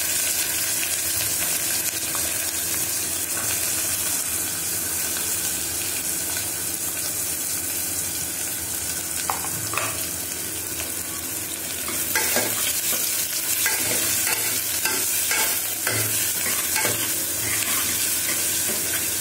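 Chopped shallots and onions frying in hot oil with whole spices in a pressure-cooker pan, a steady sizzle as they are sautéed. From about twelve seconds in, a metal spoon stirs them, scraping and clicking against the pan.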